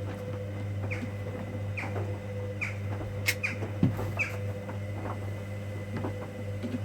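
Hoover Dynamic Next front-loading washing machine in its 90 °C cotton main wash: the drum turning with a steady motor hum, and short falling chirps and clicks about once a second as the load tumbles.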